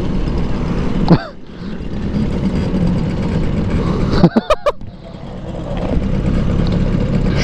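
Motorcycle riding noise, engine and wind, that drops off about a second in as the bikes slow for a stop. A few quick engine revs sound around four seconds in, after which the noise builds up again.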